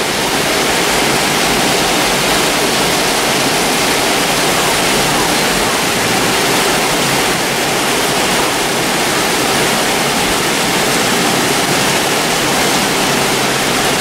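Torrential rain pouring down steadily, a dense even downpour onto flooded streets and rooftops.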